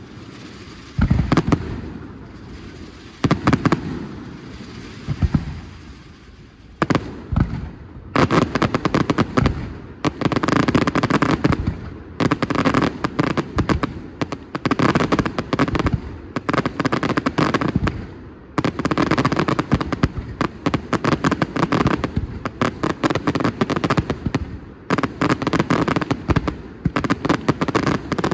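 Fireworks display going off: a few separate heavy bangs, then from about eight seconds in a dense, rapid barrage of bangs and crackles.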